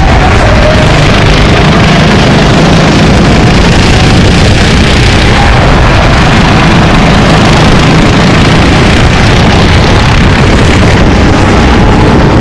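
Racing kart engines running at speed, loud and constant, with a faint engine note rising and falling in pitch.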